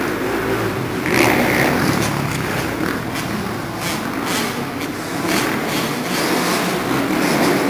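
Motocross bikes' engines revving and easing off as riders work around a dirt supercross track, with more than one bike running at once. The engine note swells about a second in.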